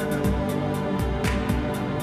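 Background music with a steady drum beat, low kicks about twice a second under quick high ticks.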